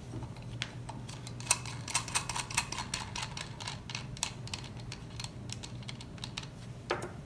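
Light, irregular clicking and clinking of small metal parts as the axle and its nuts are handled and worked out of a Sturmey-Archer drum brake bicycle hub.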